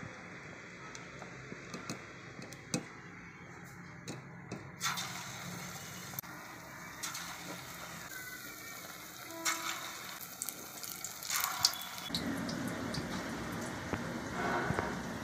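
Raw-banana slices in gram-flour batter start sizzling and crackling in hot oil about five seconds in, as they deep-fry in a pan. This becomes a steadier frying hiss near the end. Before that there are only faint clicks from batter being mixed by hand in a steel bowl.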